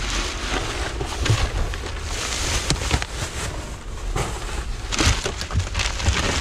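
Rummaging through trash in a dumpster: bags, paper and cardboard rustling and crunching, with scattered knocks as things are shifted.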